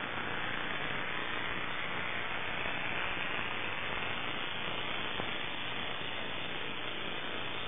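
Steady static hiss on the audio channel of an analog FPV video downlink, with no clear motor or propeller tone.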